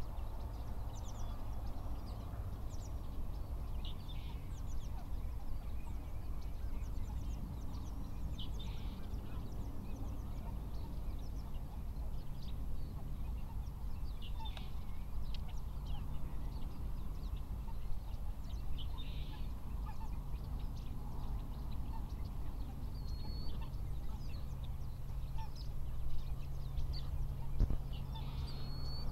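Geese calling: many short, high yelps scattered through the whole stretch, faint, over a steady low hum.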